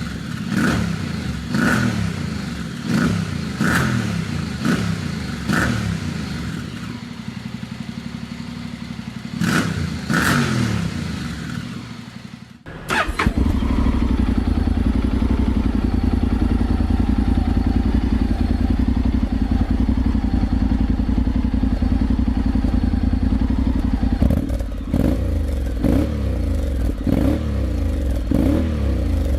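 Honda X-ADV's parallel-twin engine through an aftermarket exhaust, blipped in quick revs about once a second for the first dozen seconds. After an abrupt cut it idles steadily with a deep, loud rumble, with a few more revs near the end.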